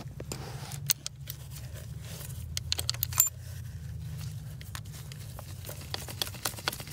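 Small, scattered metal clicks and taps as a diesel injector's hold-down claw and bolt are fitted by hand, with a quicker run of clicks near the end as a small socket wrench goes on the bolt. A steady low hum runs underneath.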